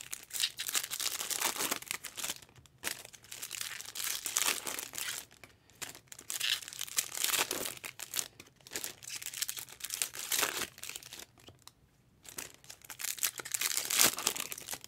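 Foil trading-card pack wrappers crinkling and tearing as Topps Chrome packs are ripped open and handled, in irregular bursts with brief pauses.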